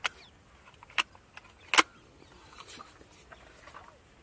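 Break-barrel air rifle being cocked and closed: three sharp metallic clicks about a second apart, the third the loudest.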